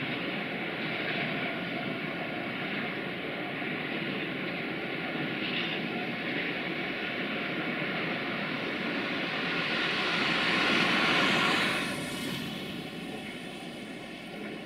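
Freight train's wagons rolling away on the track: a steady rumble and rush of wheels on rail. The noise swells louder to a peak about eleven seconds in and then falls off quickly.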